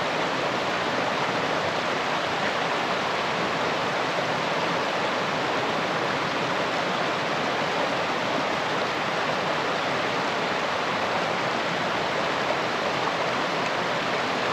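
Mountain stream running full over rocks: a steady, loud rush of water.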